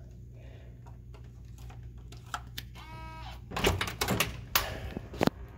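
Electronic keycard lock on a hotel room door giving a short beep as it accepts the card and unlocks, followed by several clicks and knocks of the handle and latch as the door is opened.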